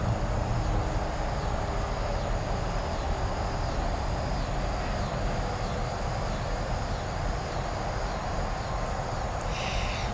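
Steady outdoor background rumble. Over it, a faint high chirp repeats about twice a second through most of the stretch, and a brief louder high squeak comes near the end.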